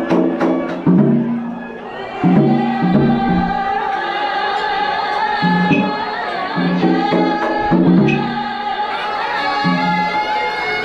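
Traditional Vietnamese ceremonial music of a Cao Đài rite: instruments and singing, with a long held high note through the middle and shorter low notes repeating beneath it.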